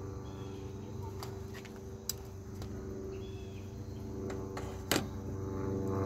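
A motor drones steadily in the background. Over it come a few sharp clicks from a utility lighter being worked at the paper under a charcoal chimney, and a louder knock about five seconds in as the lighter is set down on the metal table top.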